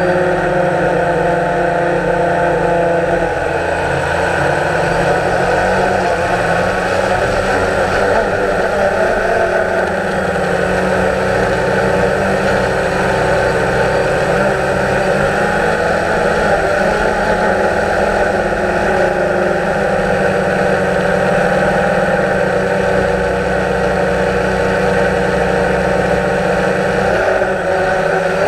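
DJI Phantom quadcopter's electric motors and propellers whirring steadily in flight, the whine shifting slightly in pitch as it manoeuvres.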